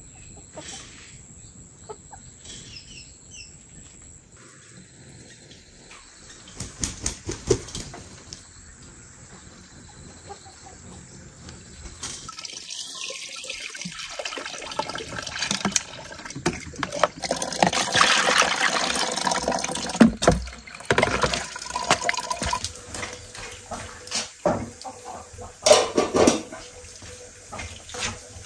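Insects trilling steadily around foraging chickens, with one chicken call about twelve seconds in; then water scooped and poured from a plastic dipper, splashing into buckets and a metal pot during washing up, and a few sharp knocks near the end.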